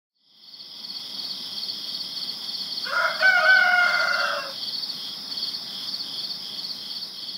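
A rooster crows once, about three seconds in, over a steady, pulsing high trill of insects.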